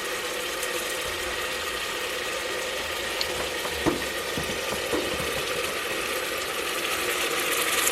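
Browned ground beef sizzling in a Presto electric kettle, a steady hiss. A few light clicks or taps come about three, four and five seconds in.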